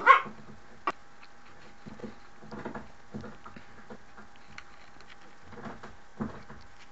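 Faint soft scuffles and taps of a puppy moving about and pawing at a door on carpet, in small clusters, with the end of a bark cut off at the very start.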